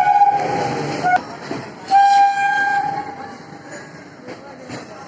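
Train horn sounding: a blast that breaks off just under a second in, a brief toot, then another blast about two seconds in lasting nearly a second. Under and after it the passing train runs with wheel clicks on the rails, growing fainter.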